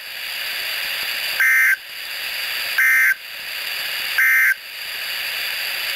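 NOAA Weather Radio SAME end-of-message code: three identical short, buzzy digital data bursts about a second and a half apart over steady radio hiss. The bursts signal the end of the severe thunderstorm warning message.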